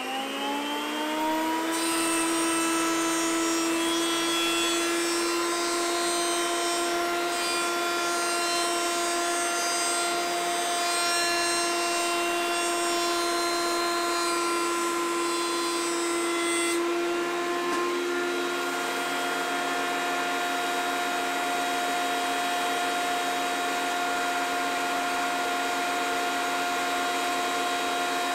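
Benchtop jointer motor finishing its spin-up to a steady whine, then edge-jointing a board: a dense cutting hiss from the cutterhead as the edge is fed over the tables, from about two seconds in to about seventeen seconds. After that the motor runs on freely with its whine alone.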